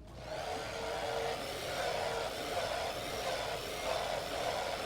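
A handheld hair dryer switched on just after the start and running steadily, an even whoosh with a steady whine in it.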